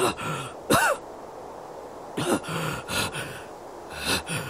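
A wounded man's ragged gasps and groans: about five short, strained breaths with voice in them, one rising and falling sharply about a second in.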